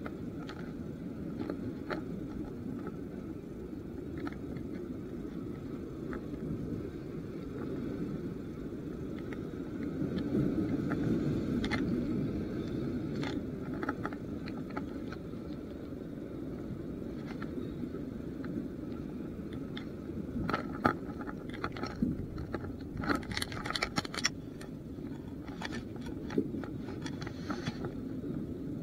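Steady low rumble of wind and sea noise on an action camera's microphone. Scattered sharp clicks and scrapes come through it, thickest a little past two-thirds of the way through, as the landed surgeonfish is handled on the concrete.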